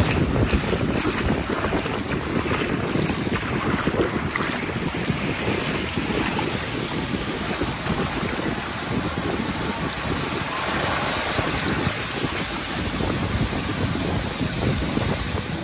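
Wind buffeting the microphone over the wash of small waves lapping in shallow surf, gustier in the first few seconds.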